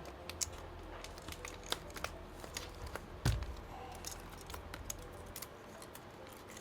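Light scattered clicks and taps of hands handling an opened laptop and its display cable connectors, with one louder knock about three seconds in.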